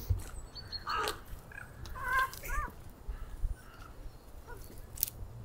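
Cats caterwauling in a scuffle as a tomcat grabs a female: one cry falling in pitch about a second in, then a few short cries around two seconds in.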